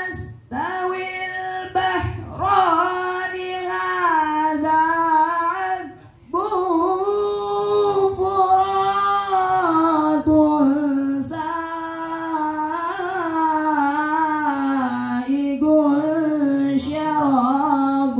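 A young man's voice chanting Quran verses in the melodic tilawah style into a microphone, amplified through a loudspeaker: long held, ornamented notes in phrases of several seconds, with short breaths between, the pitch slowly sinking as the recitation goes on.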